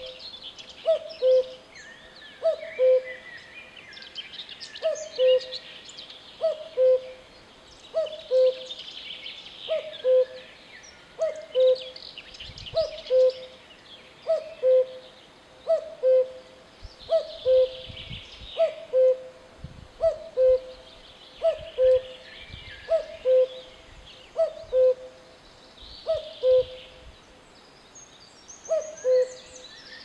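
Common cuckoo calling its two-note "cuck-oo", a higher note dropping to a lower one, repeated about every one and a half seconds with a couple of short pauses. Other small birds chirp and sing faintly behind it.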